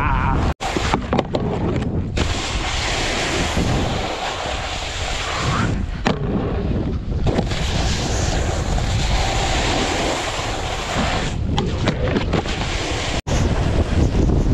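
Wind buffeting an action camera's microphone while snowboarding downhill, mixed with the hiss and scrape of the board's base and edges over the snow. The sound cuts out for an instant twice, about half a second in and near the end.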